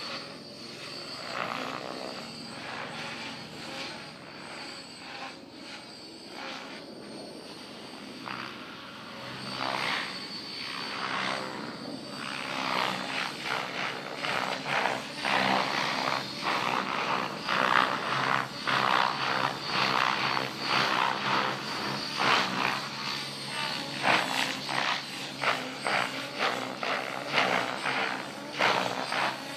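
Electric Thunder Tiger Raptor E700 RC helicopter flying 3D aerobatics overhead: a steady high motor and gear whine with the rotor blades whooshing in quick pulses. The blade whooshes grow louder and more frequent from about ten seconds in.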